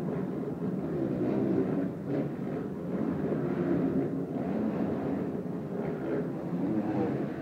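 Several supercross motorcycles' engines running and revving on the dirt track, their pitch rising and falling, heard across an indoor arena.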